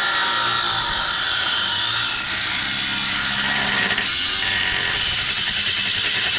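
Power tool cutting through a steel frame bar: a steady, loud grinding hiss with a whine that drops in pitch in the first few seconds as the tool bears into the cut.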